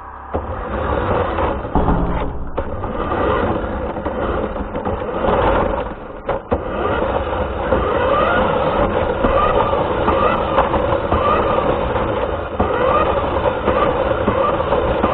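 Radio-controlled car driving, recorded from the car: its motor gives a steady whine over a continuous rumble of wheels on the ground. From about halfway in, a higher tone rises and falls over and over as the throttle changes.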